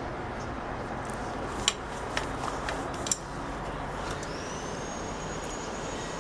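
Small handling noises at a workbench: two sharp clicks, about a second and a half apart, as tools and the opened multimeter are handled before the buzzer is desoldered. Under them runs a steady background noise, and a faint thin high whine starts about two-thirds of the way through.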